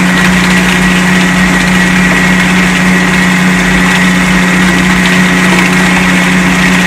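Pulper running steadily, its central rotor churning and breaking up paper pulp at 12% consistency. A loud, even hum with a thin high whine above it.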